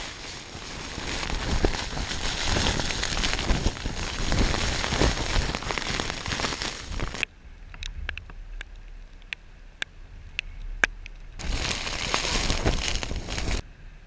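Heavy rain and wind hitting the fabric of a storm shelter in a dense hiss. It cuts off suddenly about seven seconds in, leaving scattered sharp taps, then comes back for a couple of seconds near the end.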